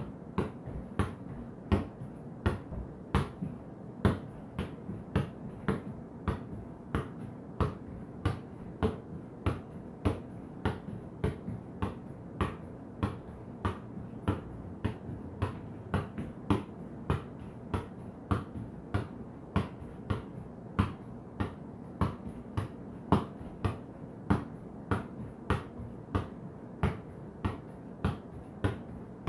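An inflated ball being juggled on bare feet and legs: a steady run of soft slapping taps, about two a second, each touch keeping it in the air.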